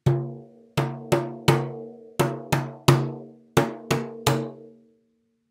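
Hand drum struck with the base of the palm near the edge of the head: one stroke, then three quick groups of three. Each stroke gives a hollow thud with a low ringing tone that dies away after the last one.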